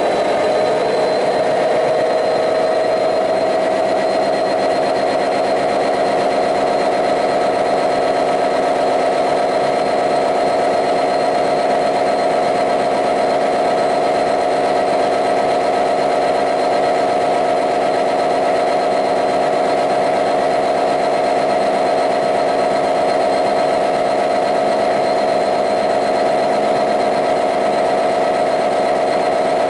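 The EMD 710 two-stroke V12 diesel of a Class 66 locomotive running steadily at idle, heard from inside the engine room, with a steady high whine over the engine note.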